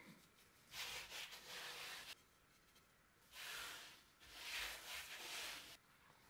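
A gloved hand rubbing dusting flour across a thin rolled-out sheet of noodle dough: two soft brushing sweeps, the first about a second in and a longer one from about three seconds in.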